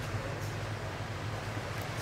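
Steady low rumble under a hiss of wind on the microphone.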